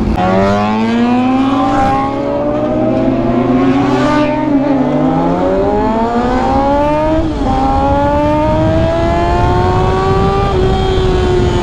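Motorcycle engine accelerating through the gears: its pitch climbs and drops back at each upshift, about three times, then it settles to a steady cruise near the end.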